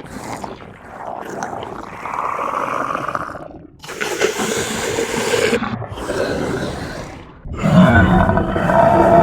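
Designed monster/alien creature sound effects: a run of rough growls and roars in about three separate calls, each a second or two long. About three-quarters of the way through, a louder, steadier pitched sound begins.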